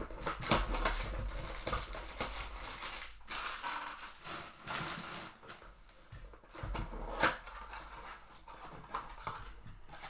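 Cardboard trading-card box and pack wrapper being handled and torn open, with rustling, crinkling and scattered clicks as the flaps and cards are worked.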